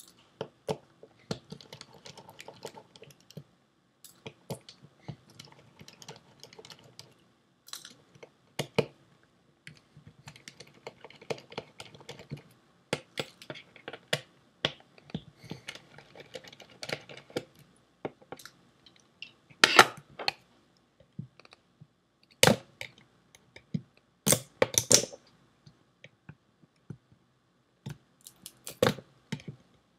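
Small screwdriver working the screws out of a Seagate ST410800N hard drive's metal cover: irregular light clicks and scrapes of the bit in the screw heads. Several sharper metal knocks come in the second half.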